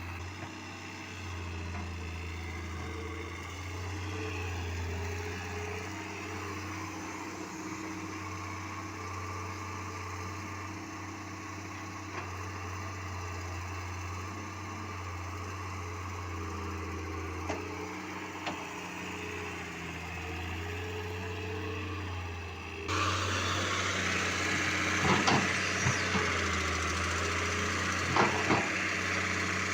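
Heavy construction machinery engine running steadily with a low hum. About two-thirds of the way through the sound suddenly gets louder and noisier, with several sharp knocks or clanks near the end.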